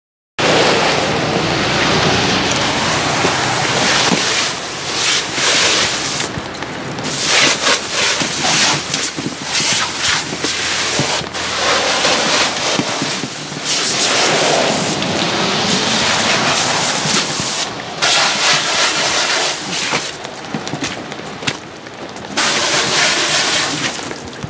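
A garden hose spray nozzle spraying water hard onto a rain suit: a loud, steady hiss and splatter that surges and dips briefly a few times as the spray moves.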